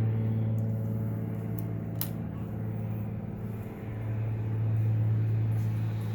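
A steady low electrical hum, with a few faint ticks of small phone parts being handled about half a second, a second and a half and two seconds in.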